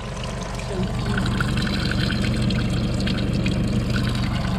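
A small spring trickling from a rock spout and splashing over a cupped hand, a steady running water sound close to the microphone.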